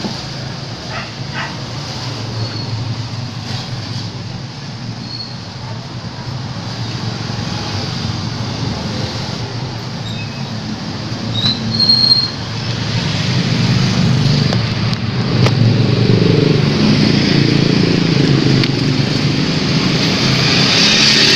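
A motor vehicle engine running close by, a low steady sound that grows louder about two-thirds of the way through.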